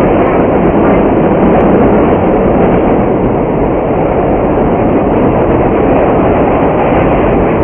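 A 1931 New York subway car running, heard from inside the car: a loud, steady rumbling noise with no let-up.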